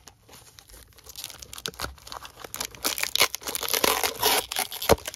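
Foil baseball-card pack wrappers crinkling and crackling as glued packs are peeled loose from each other, with some tearing. It builds about a second and a half in, is loudest in the second half, and ends with one sharp snap.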